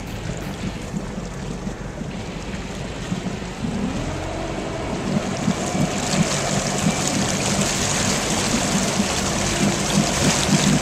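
Motorboat engine running low, then revving up about four seconds in as the boat pulls a water skier out of the water, with rushing water and wind noise growing as it gains speed.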